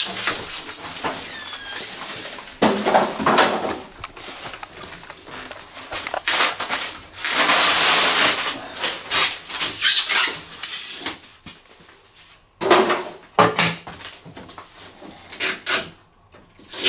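Handling noises from a freestanding front-loading washing machine being moved and worked on: irregular knocks and rubbing against its panels and the floor, densest around eight seconds in, with two sharp knocks near the end. A few short falling squeaks come about a second in.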